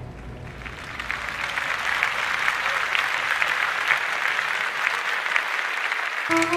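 Audience applauding, swelling about a second in and holding steady, with new music starting near the end.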